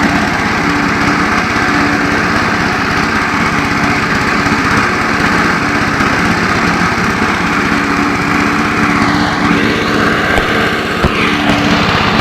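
Qualcast Commodore 14-inch cylinder mower's small engine running steadily with the drive engaged, turning the cutting cylinder and wheel as the mower moves along.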